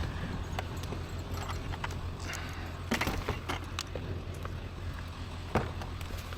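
Scattered metallic clinks, rattles and knocks as scrap metal is handled and moved, the sharpest knocks about three seconds in and near the end, over a steady low hum.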